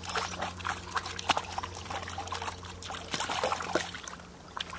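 Hands splashing and trickling in shallow river water, in quick irregular splashes, as a freshly gutted fish is rinsed.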